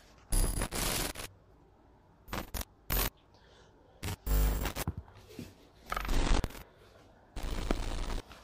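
Handling noise from a handheld camera: several short bursts of rustling and scraping as it is moved and rubbed, with quiet gaps between them.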